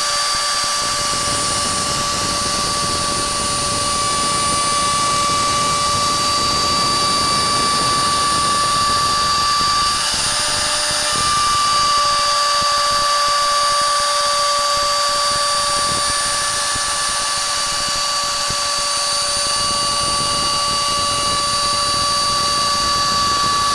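CNC router spindle running with a steady high whine while a 6 mm straight end mill cuts wood, with a noisy hiss of cutting under the tone. The pitch falters briefly about ten seconds in, then holds steady again.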